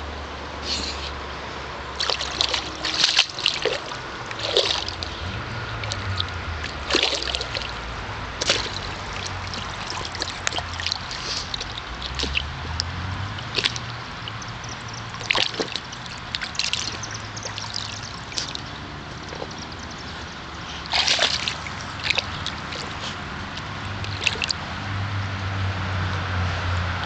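A dog wading in a shallow inflatable paddling pool, pawing and splashing at the water after goldfish: irregular splashes, a few seconds apart, with sloshing in between.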